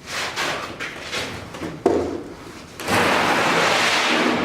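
Crated packages being shifted on the shop floor: scuffs and knocks, a sharp thud about two seconds in, then a loud steady scraping for about a second and a half as a package is slid across the floor.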